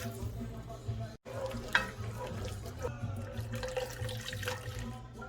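Chicken broth pouring and bubbling into the pan to deglaze the sautéed vegetables and seasoning. The sound breaks off for a moment about a second in.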